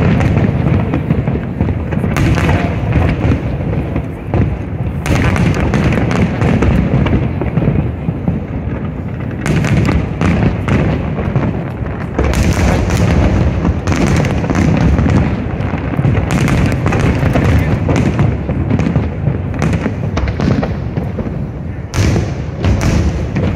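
Aerial fireworks bursting in quick succession: a nearly continuous barrage of loud booms and sharp bangs with no pause.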